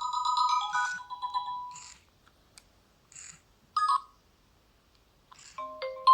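Nokia N70 ringtones playing: a tune of electronic notes with short percussion hits fades out about two seconds in, a couple of brief blips sound in the pause, and a new ringtone with lower notes starts near the end.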